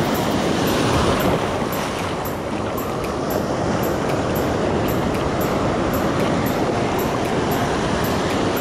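Shallow surf breaking and rushing in and out, a steady wash of foaming seawater.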